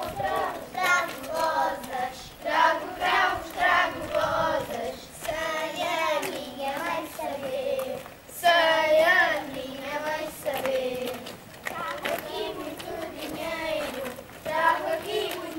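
A group of children singing a Portuguese round-dance song together, all the way through.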